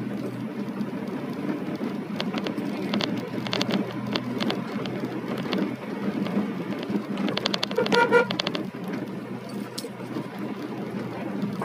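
Ambulance moving slowly on a wet road, heard from inside the cab: a steady engine and tyre hum with scattered clicks. A short pitched tone sounds about two-thirds of the way through.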